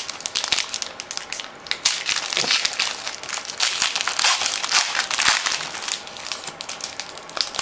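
Wrapper of a 2013 Panini Rookies & Stars football card pack being torn open and crinkled by hand: dense, irregular crackling that stops near the end.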